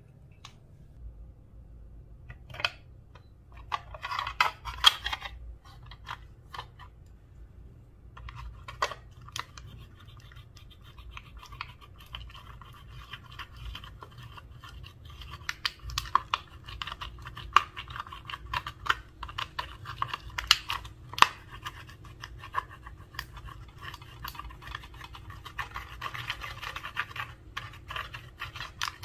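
Clear slime being mixed with makeup and glitter, giving sticky crackles, clicks and pops. A few scattered clicks come at first, then a brief flurry. From about a third of the way in there is a continuous scratchy crackling with frequent louder pops.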